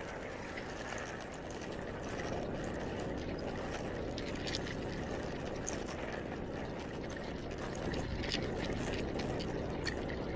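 Steady rush of wind on the microphone with the low noise of a slowly moving vehicle on the road.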